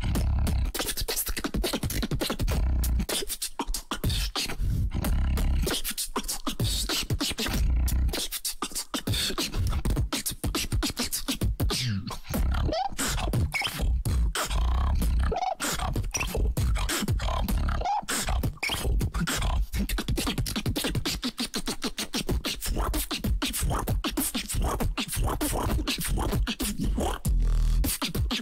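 Beatboxing: a continuous vocal beat of deep bass hits and sharp click-like snares in a fast rhythm, with a few brief breaks.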